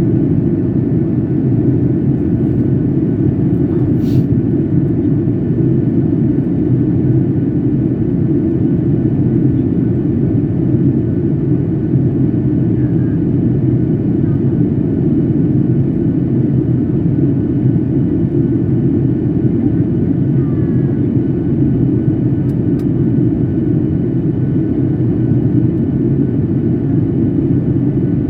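Steady roar of an airliner heard from inside the passenger cabin, engine and airflow noise on the approach to landing, with one sharp click about four seconds in.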